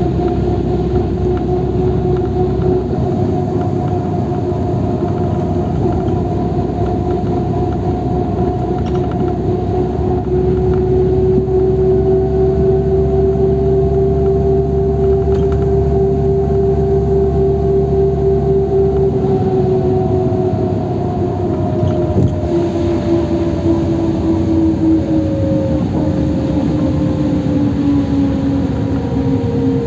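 Cabin noise of a LiAZ 529265 city bus under way: engine and tyre rumble under a steady whine. The whine's pitch rises a little, holds, then falls over the last third as the bus slows.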